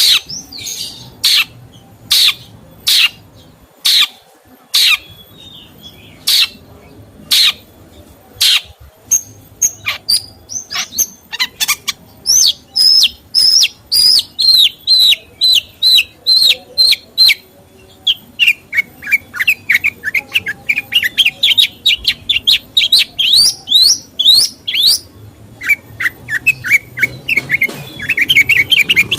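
A songbird singing: sharp, loud single calls about once a second, then fast strings of chirps, first falling in pitch and then climbing.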